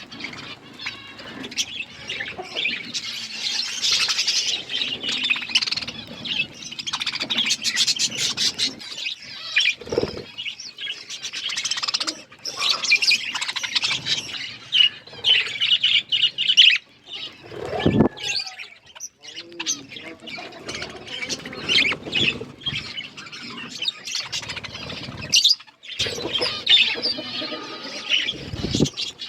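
A flock of budgerigars chattering and chirping continuously, with a few brief wing flutters.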